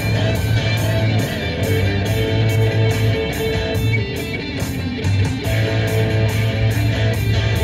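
Guitar-driven rock music with a steady beat, playing on a car radio.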